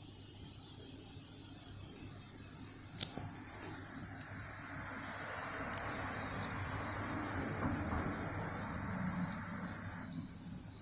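Cicadas singing: a steady high-pitched drone, joined about three seconds in, after a couple of sharp clicks, by a louder, lower buzzing song that cuts off near the end.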